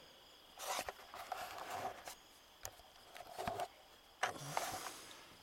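Close rustling and handling noise: several short, irregular bursts of scraping and shuffling with a few sharp clicks, as things are moved about right by the microphone.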